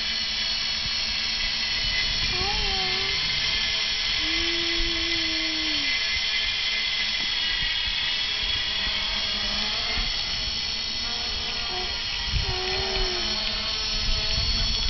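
Quadcopter in flight: the high whine of its four electric motors and propellers, steady, with slight shifts in pitch.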